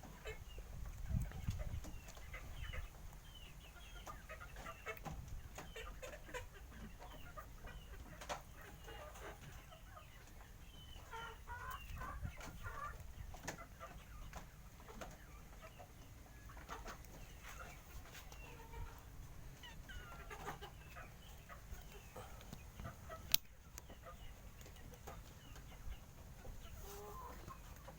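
Many short, scattered animal calls, chirping and clucking on and off throughout, with one sharp click about 23 seconds in.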